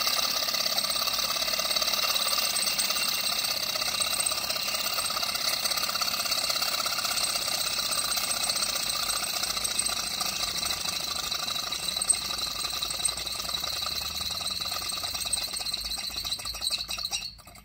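Small brass model Stirling engine heated by a tea-light, running with a fast, steady mechanical rattle from its flywheel, crank and linkages. The rattle eases slightly and cuts off sharply near the end.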